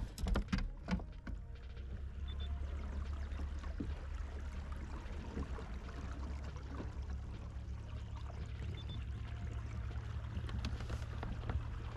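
A fishing kayak under way, water washing past the hull over a steady low rumble. There are a few knocks in the first second or so.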